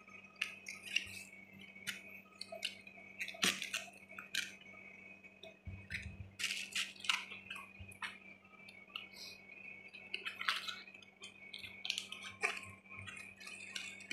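Irregular crackling and rustling of softened cabbage leaves being pulled apart and handled by hand, a few louder crackles among them, over a faint steady high tone.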